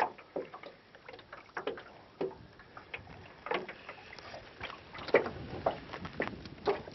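Light, irregular ticks and knocks, a few each second, from small ripples lapping against an aluminium boat hull.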